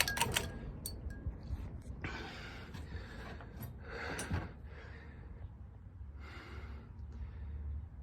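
Harbor Breeze Cheshire ceiling fan coasting down after being switched off from high, with a low steady rumble. Three short airy puffs come about two seconds apart, and a few faint clicks sound in the first second.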